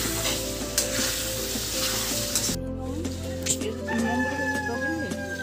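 Spiced vegetable and chicken curry sizzling in a kadai on a gas stove while a spatula stirs it. A long thin tone, falling slightly, comes in over the last second and a half.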